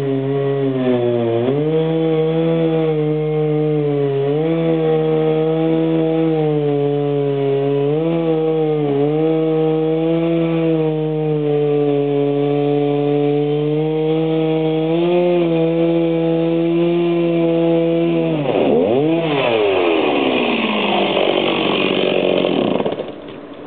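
Chainsaw engine running steadily at a high note, dipping briefly in speed every few seconds. Near the end it is revved and then runs rough and loud under load for a few seconds, as when cutting into wood, before the sound drops away just before the end.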